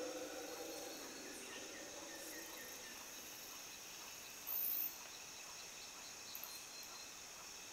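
Steady rainforest insect chorus of high buzzing and trilling, with the deep roaring of distant howler monkeys fading out in the first second or so. A run of short chirps comes about two seconds in, and a brief very high-pitched whine about four and a half seconds in.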